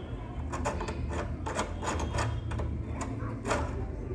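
Irregular light clicks and rattles of door handle hardware as a part is fitted and rotated into place by hand, over a steady low hum.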